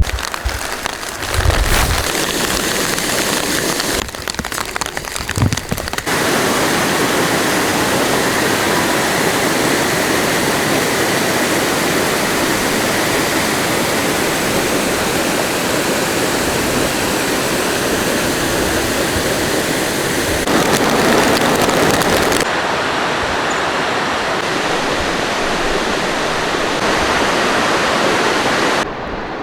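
Steady rush of fast-flowing water, loud and even, changing abruptly in tone several times.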